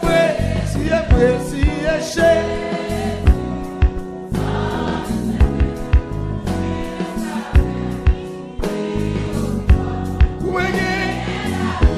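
Gospel music: choir voices singing sustained lines over a band with a steady drum beat.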